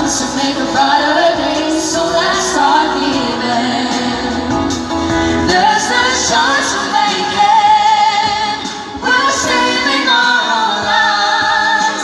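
Live pop singing into hand-held microphones, amplified with musical accompaniment, a woman's voice carrying the melody.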